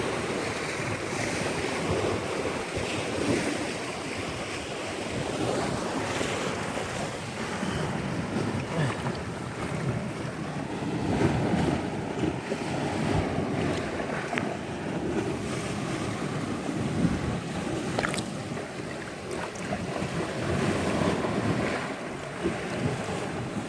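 Wind buffeting the microphone over the wash of sea waves on a shore at low tide, with a few sharp clicks, the clearest about three-quarters of the way through.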